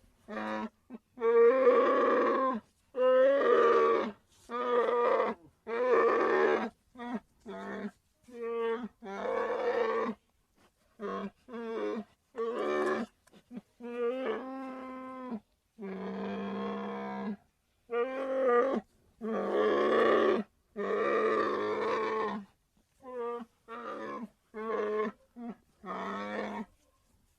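Sun bear vocalizing: a long series of repeated pitched calls, some short and some held for a second or two, with brief gaps between them.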